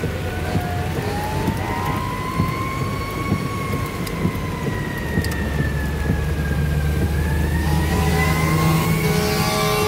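A siren wailing, its pitch rising and falling slowly over several seconds, heard over heavy rain and the low rumble of the car driving on a wet road.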